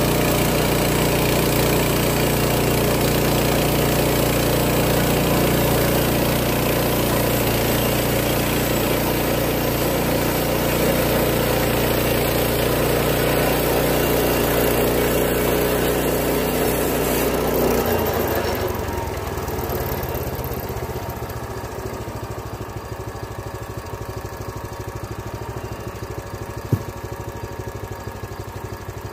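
Small gas engine of a Timbery M100 portable band sawmill running at full speed as the band blade saws through a log, then throttled back to a slower idle about eighteen seconds in. A single sharp click near the end.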